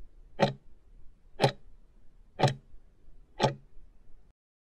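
Countdown timer sound effect ticking like a clock, four sharp ticks one a second as the answer time runs out to zero. The sound cuts off suddenly near the end.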